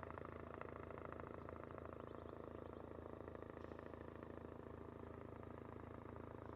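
Distant aircraft engine running steadily: a low drone with a fast, even pulsing beat.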